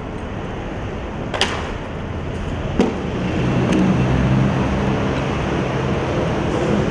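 Skateboard wheels rolling over pavement, with two sharp clacks as they cross joints in the first half; the rolling rumble grows louder after about three seconds.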